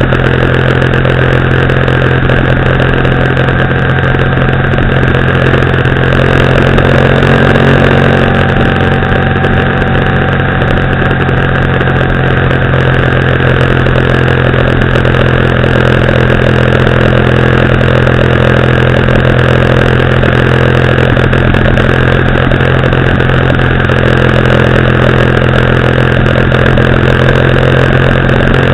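Motorcycle engine running steadily at cruising speed, with a constant drone and road noise, swelling slightly a few seconds in.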